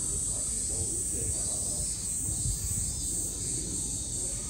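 Insects droning steadily in a high, even pitch, over a low murmur of people talking in the background.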